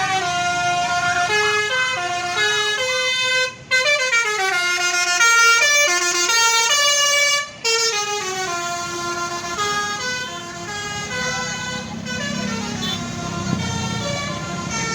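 A bus's multi-tone 'telolet' musical air horn playing a melody of held notes that step up and down, breaking off briefly twice. A low engine rumble rises near the end as the bus goes by.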